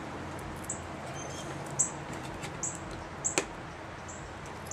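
Light plastic clicks and ticks from hands handling a small plastic automotive wiring-harness connector, a few scattered ticks and one sharper click about three and a half seconds in, over a steady low hum.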